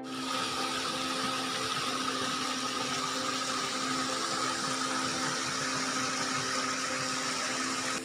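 Steady rush of stream water tumbling over rocks in a small cascade, with a few faint steady tones beneath it.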